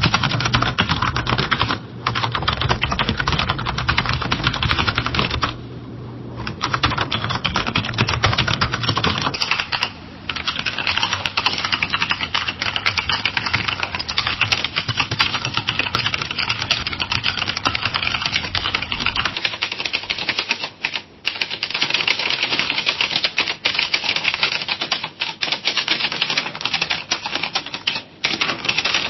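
Fast typing on a computer keyboard: a dense, continuous clatter of key clicks broken by a few short pauses. It is three separate recordings in a row, the first with a steady low hum underneath.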